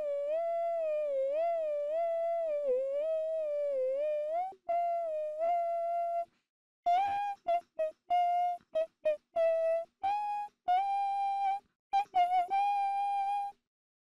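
A high voice humming a wandering melody. It starts with smooth, wavering held notes, breaks off briefly about six seconds in, then goes on in short, clipped notes.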